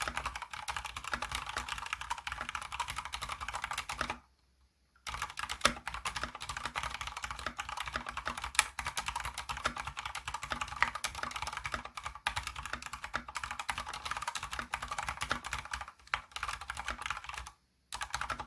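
Fast, continuous typing on an Anne Pro 2 mechanical keyboard with Cherry MX Speed Silver linear switches, a dense run of key clacks. The typing stops for under a second about four seconds in and again briefly near the end.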